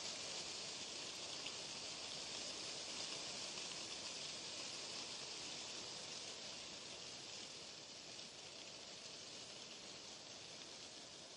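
Steady white-noise hiss, an even rain-like wash with no separate drops, tones or clicks, strongest in the higher register.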